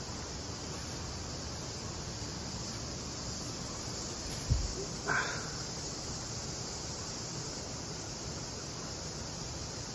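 Steady high-pitched insect chorus, with one dull thump about halfway through and a short higher sound right after it.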